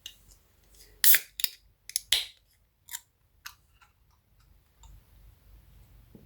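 A series of sharp clicks and clacks of small hard objects being handled on a workbench, the loudest about one and two seconds in, then a few fainter ticks.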